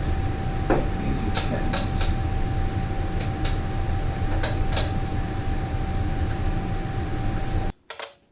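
A steady low background hum with a constant thin whine, over which come a handful of sharp clicks and taps from hands and tools working at a portable generator's carburetor. The hum cuts off abruptly near the end, leaving only a few more clicks.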